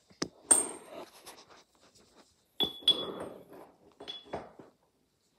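Small rocks clinking against a glass jar: several sharp clinks with a short ring, in two clusters about two seconds apart, with handling rustle between.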